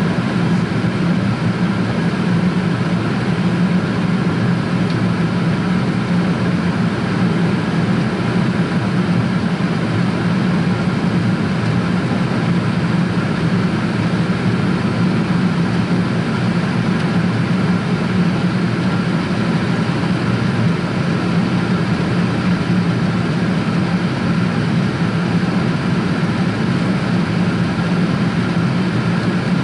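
Jet airliner cabin noise in cruise flight: a loud, steady roar of engines and rushing air with a low hum, unchanging throughout.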